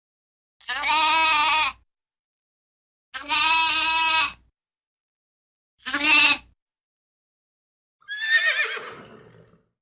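Lambs bleating: three separate wavering bleats, each a second or less. Near the end a horse whinnies, the call falling in pitch.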